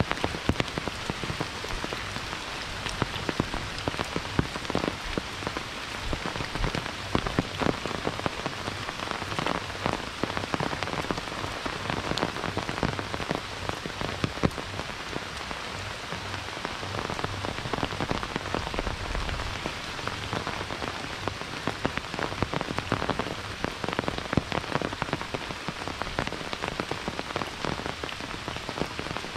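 Monsoon rain falling steadily, with many short, sharp drop hits close by.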